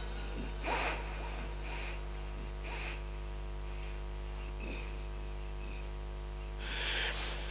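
Steady electrical hum from the public-address system, with a few short breathy hisses about a second in, near two and three seconds, and a longer cluster near the end.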